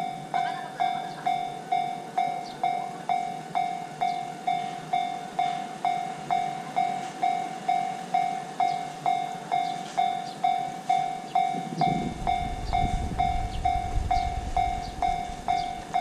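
Japanese level-crossing warning bell ringing its steady electronic clang, about two strikes a second, as the crossing stays closed. A low rumble joins about twelve seconds in.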